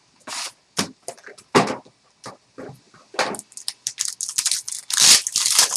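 Trading cards and their packaging being handled: a quick run of short scrapes, rustles and taps, busiest and loudest near the end.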